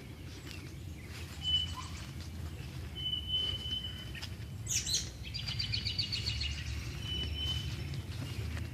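Birds singing and calling: a thin high whistle repeated several times, then a quick sweeping note and a rapid trill about halfway through, over a low steady rumble.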